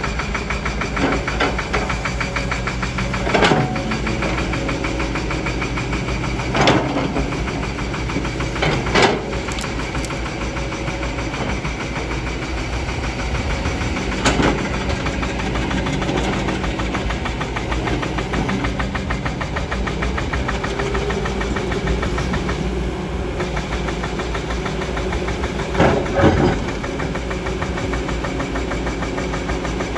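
Kobelco excavator's diesel engine running steadily under work, with about five brief sharp clanks spread through the stretch.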